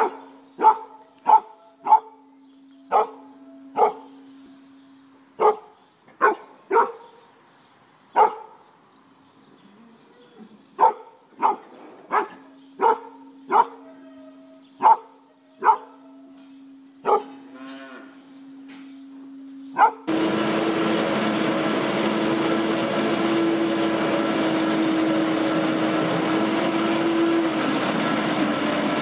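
A dog barking in short, sharp barks at irregular intervals, about eighteen times, over the faint, steady hum of an automatic manure scraper robot's motor, which drops out now and then. About twenty seconds in, a loud, steady machine noise with a constant tone takes over, from a motor unit working a large corrugated hose.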